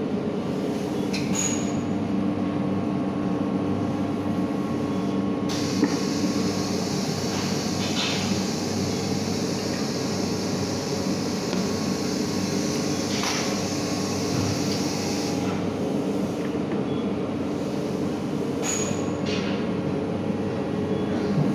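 Steady drone of factory machinery. A hiss comes in about five seconds in and cuts off sharply some ten seconds later, with a few light clicks.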